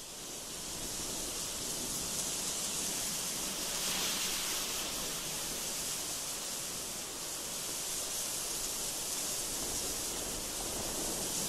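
A steady rushing hiss, strongest in the treble, that fades in over the first two seconds.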